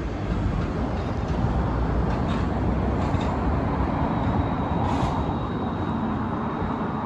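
Steady low rumble of road traffic passing over the bridge.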